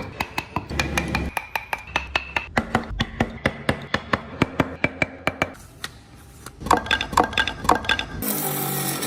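A rapid, even clicking, about four to five clicks a second, over faint steady tones, with a short lull a little past halfway. About eight seconds in, a steady rasping takes over: a file or rasp worked on wood.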